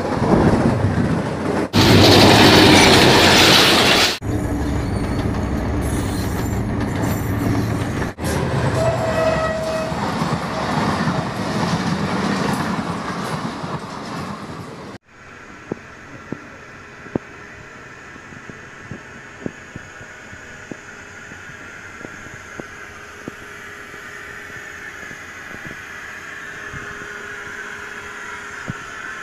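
Diesel-electric locomotives passing on the track, in several short cuts, loudest about two to four seconds in. About fifteen seconds in the sound drops to the quieter, steady running of a diesel locomotive standing in the shed, with scattered small clicks.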